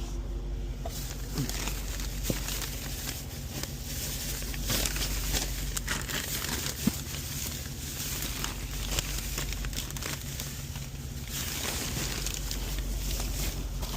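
Plastic grocery bags crinkling and rustling as they are handled, over a steady low hum.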